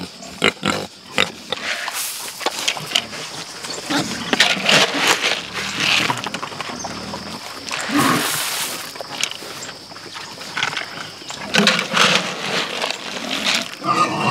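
A group of hungry sows squealing and grunting over and over in excitement at feeding time.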